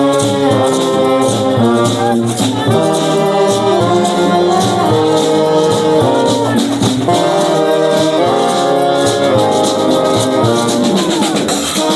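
Honk band, a brass and percussion street band, playing a tune on the march: horns sound held notes in harmony over a shaker and percussion beat that stays steady throughout.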